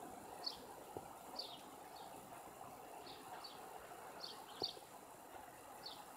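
A bird chirping repeatedly: short, high notes that each drop quickly in pitch, about one or two a second at an uneven pace, faint over a steady background hum.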